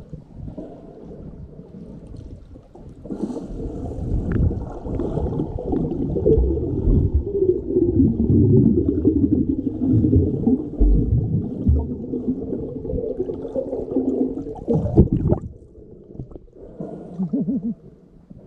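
Muffled underwater gurgling and bubbling as a snorkeler swims and breathes out. A wavering low tone runs through the middle for several seconds, and there is a sharp knock near the end.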